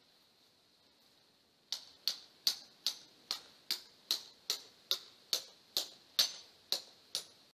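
A hammer driving a yellow plastic tent peg into the ground: about fourteen sharp, even strikes at roughly two and a half a second, starting about two seconds in.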